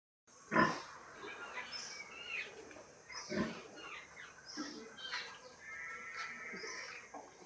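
Sow grunting to call her piglets to nurse: a few short low grunts a few seconds apart, the first and loudest about half a second in. High chirping calls and a steady high-pitched whine continue underneath.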